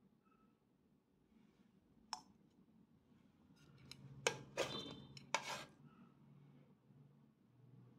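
Chopsticks clicking and clattering against a frying pan while sausages are turned in it: one sharp click about two seconds in, then a quick run of clicks between about four and six seconds.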